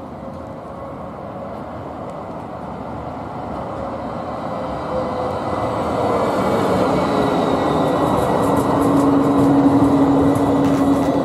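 Two coupled Karlsruhe GT8-100D/M2S dual-system light-rail cars approaching along street track and rolling past, growing steadily louder. A low steady hum joins the rolling noise about eight seconds in.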